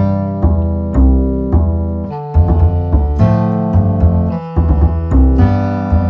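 Background music: piano chords over a steady bass line, a new chord every half second or so.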